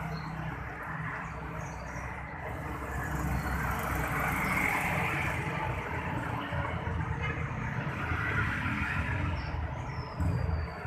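Car engine running with its piston-type AC compressor growling steadily; the uploader names worn or damaged metal (the bearing balls) inside the compressor as one cause of this growl.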